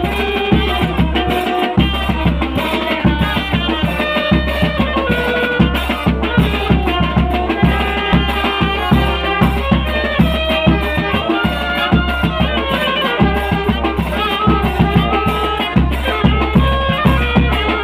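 Tanjidor band music: held melody notes from the wind instruments over a steady, regular drum beat and a deep bass line.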